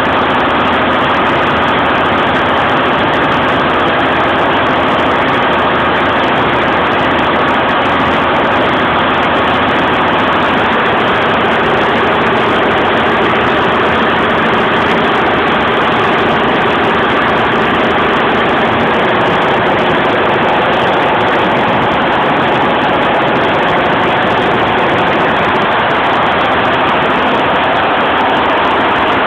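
Golden Lion computerised embroidery machine running at 850 rpm, its needles stitching. The sound is a loud, steady mechanical noise.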